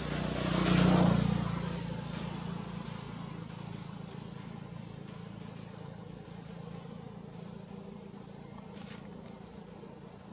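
A motor vehicle passing by, its engine loudest about a second in and then slowly fading into a steady low rumble.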